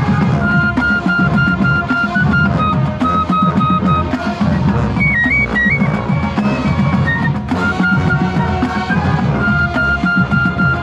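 College marching band playing, heard from within the piccolo section: a piccolo's held high melody notes stand out over low brass and drums, with a brief trill about five seconds in.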